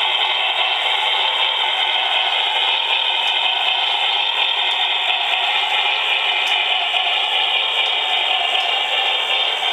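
Model Norfolk and Western 4-6-6-4 steam locomotive running along its track, a steady, even running noise from its wheels and drive.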